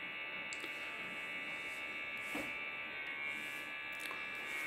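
Steady high-pitched electrical whine with a faint buzz underneath: background room tone, with a few faint ticks.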